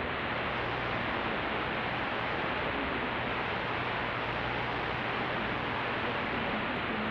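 Steady shortwave static hiss from a Racal RA-17 valve receiver, tuned to a very weak 15140 kHz broadcast that is lost in the noise, with a faint low hum underneath.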